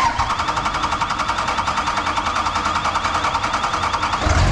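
A 5.9 common-rail Cummins inline-six diesel is being cranked by its starter in an even, rhythmic churn. Near the end it fires and catches, turning to a deeper, louder running note. This is the engine starting after new injectors were fitted and the fuel system bled.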